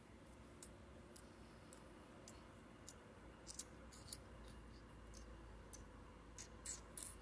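Near silence with faint scattered clicks and rustles from hands moving the toys and the phone, a few together about three and a half to four seconds in and more near the end.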